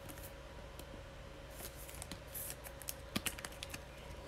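Trading card being slid into a clear plastic penny sleeve and rigid top loader: faint plastic rustling and scraping with a run of small clicks about three seconds in.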